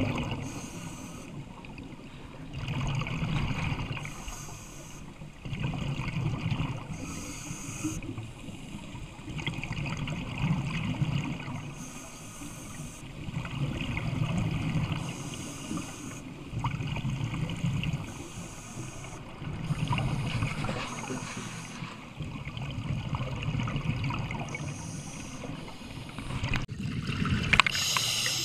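Scuba diver breathing through a regulator underwater: a hiss on each inhale alternates with a burst of exhaled bubbles, about one breath every three to four seconds. The loudest bubble burst comes near the end.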